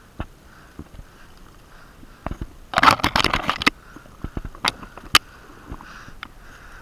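Heavy, regular breathing through a blocked-up nose close to the microphone, with scattered sharp clicks and, about three seconds in, a second-long cluster of rapid crackling clicks.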